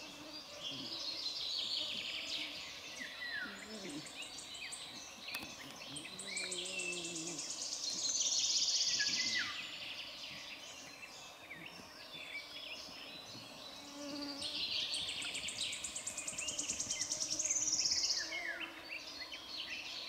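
Songbirds singing. One bird repeats a long, rapid, high trill that falls in pitch, three times, with shorter chirps from other birds between the trills.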